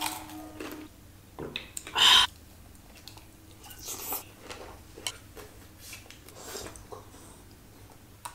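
Close-up eating sounds of a person eating a wafer and then spoonfuls of fruit jelly: chewing and lip smacks, with a short hum in the first second and one louder mouth sound about two seconds in.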